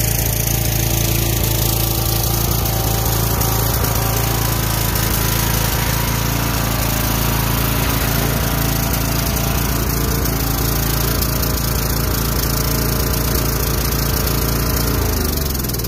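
Troy-Bilt riding mower's 20 hp Kohler Courage engine running steadily while the mower is driven up onto a trailer. Near the end it is switched off and falls in pitch as it winds down.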